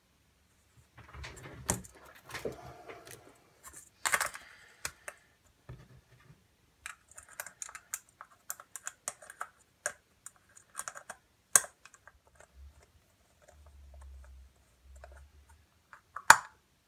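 Hard plastic parts of a disco LED bulb being handled and fitted together: a run of irregular light clicks, taps and rattles, with one sharp click near the end.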